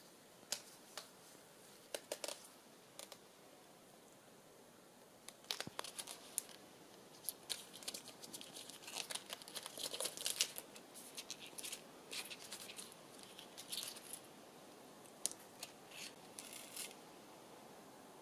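Gladiolus stems and long leaves rustling and ticking against a tabletop as they are handled and sorted, in scattered short crinkles and clicks that come thickest through the middle.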